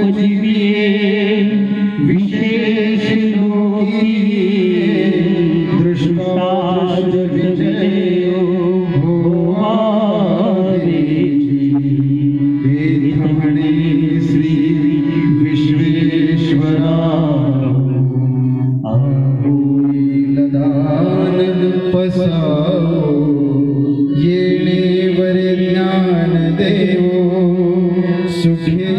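Devotional chanting: a man's voice singing long, held notes over a steady harmonium accompaniment, the pitch stepping every few seconds, with a few sharp strikes here and there.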